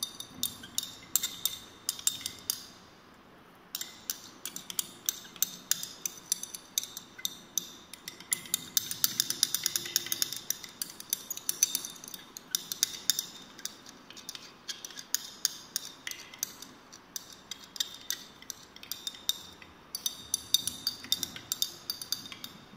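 Glass stirring rod clinking against the inside of a glass conical flask in rapid, uneven taps, stirring a suspension of acetanilide in water to dissolve it as it heats, with a short pause about three seconds in.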